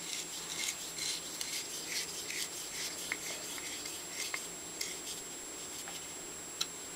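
Screwdriver turning a small screw against a nut held in pliers on a Stanley No. 113 compass plane part, making light, irregular metal scraping and rubbing with scattered sharp clicks. The sharpest click comes near the end.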